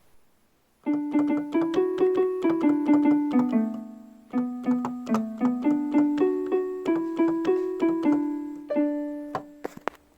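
A piano melody of short, quick notes, about four a second, in two phrases with a brief pause between them.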